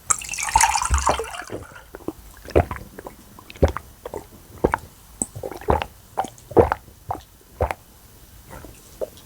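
Close-miked eating: wet chewing and squishing mouth sounds, a string of sharp smacks about once a second after a brief rush of noise at the start.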